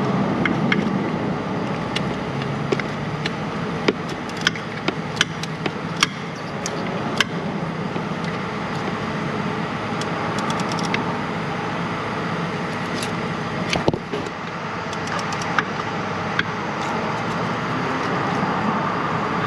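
Scattered sharp metal clicks and taps from hand tools and the bolt while the top mounting bolt of a starter motor is worked in by hand in a cramped spot. The clicks come in a cluster in the first seven seconds and a few more later, over a steady background hum.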